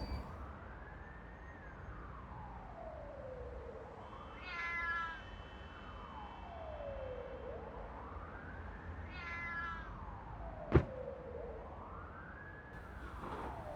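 A siren wailing slowly up and down, about three rises and falls. Two short meow-like cries come in about 5 and 9.5 seconds in, and a single sharp click comes just before 11 seconds.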